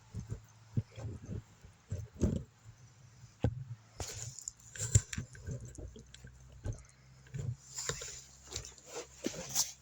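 Irregular footsteps and thumps, with the crackle and rustle of cut tree branches being dragged through brush.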